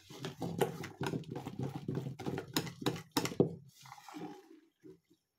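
Thick scone batter being beaten by hand in a bowl, the utensil knocking against the bowl about three times a second. The beating stops about three and a half seconds in, followed by a few soft scrapes.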